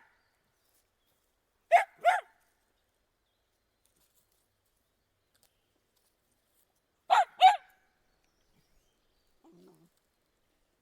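A dog barking twice in quick succession, then two more barks about five seconds later, with a faint low sound near the end.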